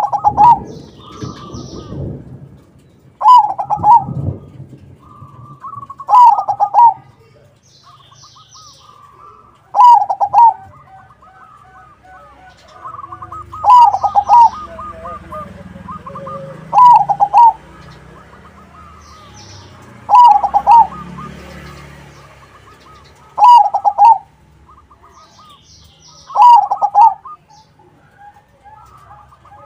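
A zebra dove (perkutut) of the crossbred 'crossing' kind repeats its loud, rippling cooing phrase about every three seconds, nine times. Faint high chirps of other small birds sound between the phrases.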